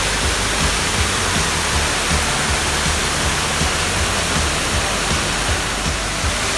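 Waterfall: a steady, even rush of falling water, with background music underneath.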